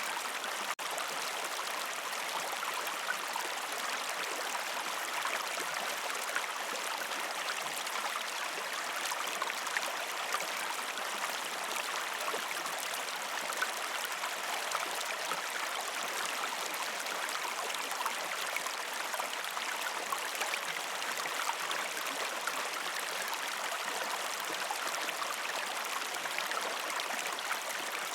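A river stream flowing over rocks: a steady rush and babble of water, with a momentary dropout just under a second in.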